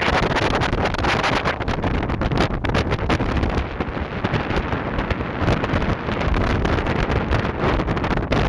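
Wind gusting and buffeting the microphone over the low running rumble of a small car ferry's engines as it crosses.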